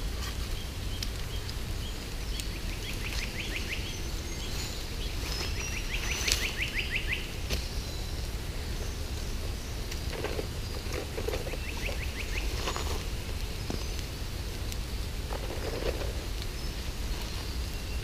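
Outdoor bush ambience with a steady low background noise, and a bird giving a rapid, dry trill of quick repeated notes three times. A few soft rustles come from handling the millbank filter bag and bottle.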